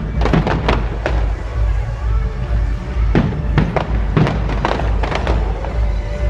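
Fireworks bursting overhead: a run of sharp bangs, several close together in the first second and another cluster from about three to five and a half seconds in, over a steady deep rumble.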